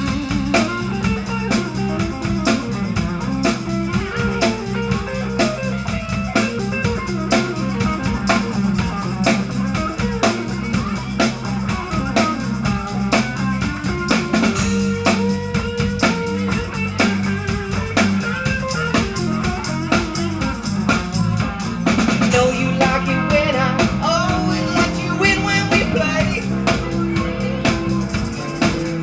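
Live funk band playing an instrumental passage: electric guitar, electric bass and a Tama drum kit keeping a steady beat. The playing gets a little louder about two-thirds of the way through.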